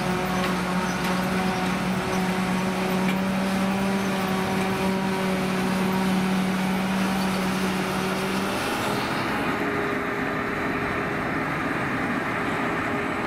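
Claas Jaguar 870 self-propelled forage harvester at work chopping grass, a steady loud drone with a low hum and a whine above it. About two-thirds through the low hum drops away and the hiss softens.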